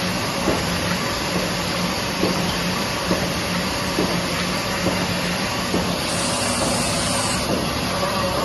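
Sakurai sheet-fed offset press with an anilox coater running: a steady mechanical whir and hiss with a regular light knock a little under once a second.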